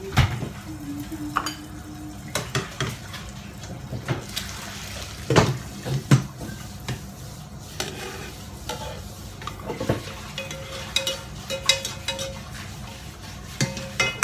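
Spatula scraping and knocking against a nonstick frying pan as cooked salmon and shimeji mushrooms are scooped out onto a plate: irregular clinks and scrapes, a few louder knocks.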